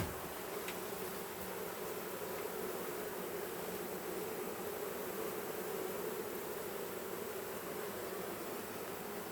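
A mass of honeybees from a colony nesting inside a wall, buzzing steadily as one continuous hum. A faint click comes at the very start.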